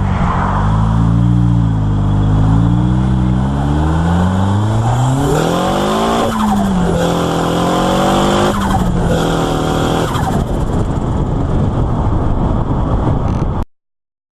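Nissan SR20DET turbocharged four-cylinder in a Mk2 Ford Escort running and revving: the revs rise and fall, climb about six seconds in, then hold higher with a few brief breaks. The sound cuts off suddenly near the end.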